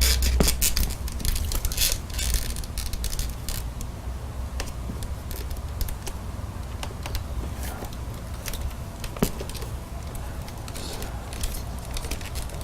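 Plastic housing parts and wiring of a Dyson DC65 vacuum cleaner being handled during disassembly: scattered small clicks and rattles, with a sharper click about nine seconds in, over a low rumble.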